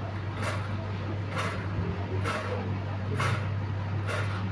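Turbine fan running with a steady low hum and a short scraping whoosh that repeats about once a second, the strange noise the fan is making.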